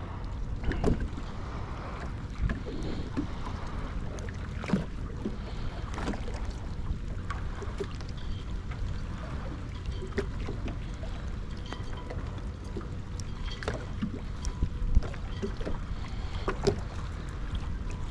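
Small fishing boat under way on its electric trolling motor: steady low wind and water noise, with scattered light knocks and clicks.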